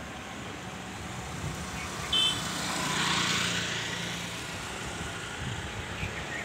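Street traffic ambience: a vehicle passes on the road, its engine hum and tyre noise swelling and fading about three seconds in. There is a short, high horn-like beep just before it.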